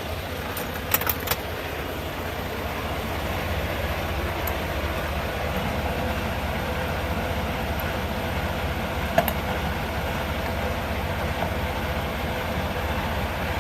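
Truck engine idling steadily, with a few sharp metallic clicks about a second in and one more later.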